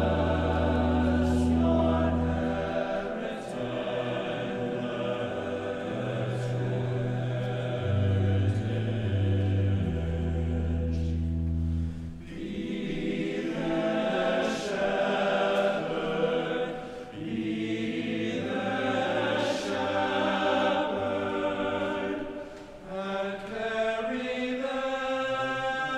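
Choir singing a slow piece with long held notes, as a music track, with deep sustained low notes underneath for the first half. The sound dips briefly between phrases.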